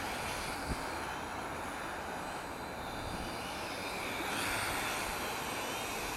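Sharper Image Lunar 14.4-inch quadcopter's propellers whirring in flight, mixed with wind noise buffeting the microphone in strong gusts; the whir swells a little about four seconds in.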